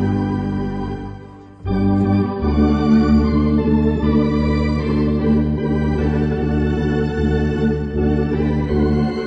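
Electronic organ and tuba playing a slow hymn together in sustained chords over deep bass notes. The music fades to a short lull about a second and a half in, then the next phrase begins.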